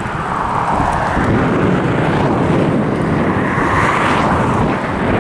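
Wind buffeting the microphone on a moving bicycle: a steady low rumble with a rushing noise that swells and fades twice.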